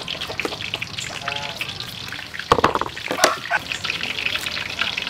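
Steady crackling of food frying in oil, with a short pitched sound about a second in and two sharp knocks, the loudest events, around the middle.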